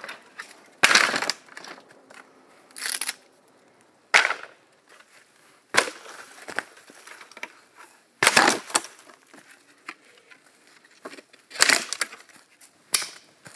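Rotten, dry bamboo being broken apart: about seven sharp cracks and snaps at irregular gaps of one to three seconds.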